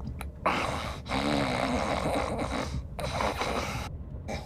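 A person snoring: three noisy snores in a row, the middle one longest at about two seconds, with a short rumbling tone near its start.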